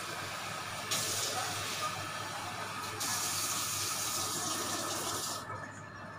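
Water running from a tap into a container, getting louder in two steps as it fills, and shut off about five and a half seconds in.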